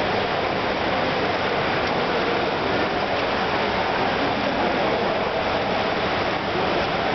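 Steady rushing water noise of an indoor swimming pool: the wash of pool water, with swimmers splashing in the neighbouring lanes.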